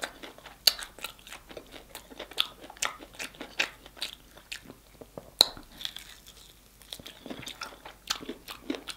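Close-up chewing of crunchy air-fried chicken: irregular crisp crunches and wet mouth sounds, with the sharpest crunches about a second in and again around the middle.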